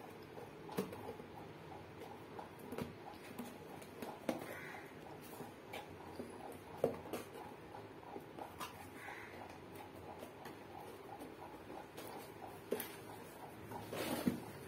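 Cardboard box and paper packaging being handled: scattered light taps and rubs as the flaps are lifted and folded, with a longer scraping rustle near the end as the contents are slid out.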